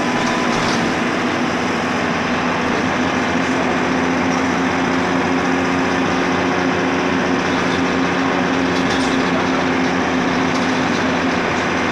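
Interior noise of a Dennis Dart single-deck bus with an Alexander ALX200 body, travelling at a steady speed. The diesel engine's drone carries a constant deep hum under a broad rushing noise, heard from inside the passenger saloon.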